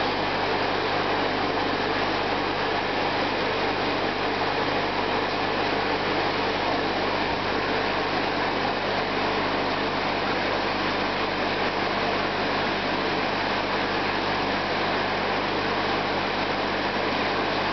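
Aquarium pump and filter running: a steady hum with a constant hiss over it.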